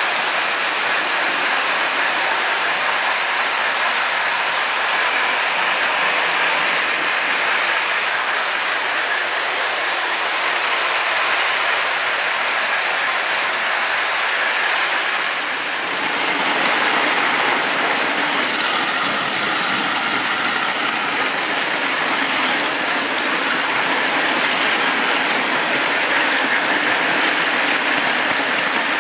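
Toy electric trains running on three-rail tinplate track: Marx 1666 locomotives and a tin-lithograph train whose motors and wheels make a steady whirring rattle. The sound dips briefly about halfway through, then comes back fuller.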